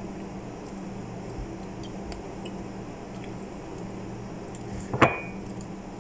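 One sharp clink with a short ring about five seconds in: a hard object striking the ceramic bowl. Under it run a steady low hum and faint small clicks.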